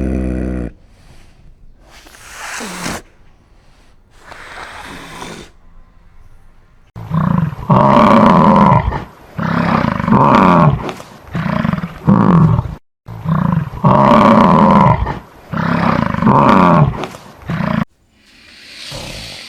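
Donkey braying: after some soft wheezing, two loud runs of hee-haw brays alternate long and short honks, with a short breath between the runs.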